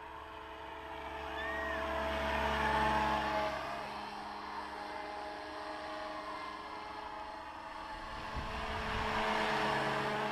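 Radio-controlled 700-size scale AS350 helicopter in flight, its motor and rotors giving a steady whine. It grows louder as it passes close about two to three seconds in and again near the end.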